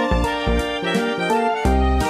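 Instrumental background music with a steady beat, a bass line and held melody notes.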